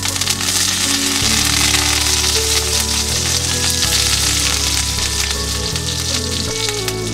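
Hot oil sizzling and crackling on an iron tawa as curry leaves fry and a piece of marinated silver biddy fish is laid in. Soft background music with low held notes plays underneath.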